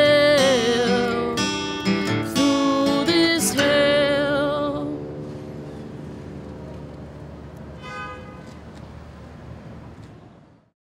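A woman singing solo with acoustic guitar, finishing a song: a wavering held note over strummed chords, then a last strum about four seconds in whose ring slowly dies away until the sound cuts off just before the end.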